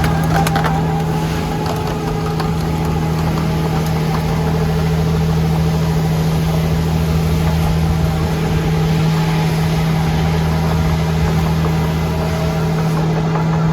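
Diesel engine of a Dynapac SD2550C asphalt paver running steadily at a constant speed, with a low, even hum.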